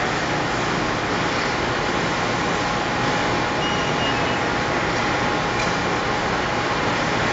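Steady machinery and ventilation noise of a working print-shop floor: a constant, even rush with a faint steady hum, and no guillotine cutting strokes.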